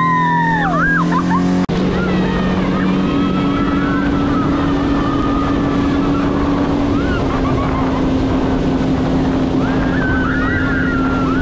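Outboard motor of a small aluminium fishing boat running at full throttle: a steady engine drone under the rush of wind and water against the hull. About two seconds in the sound breaks off for an instant and the engine note comes back slightly higher.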